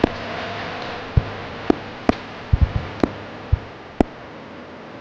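Daytime fireworks going off: about ten sharp bangs at irregular intervals, several in quick succession around the middle, over a fading background hiss.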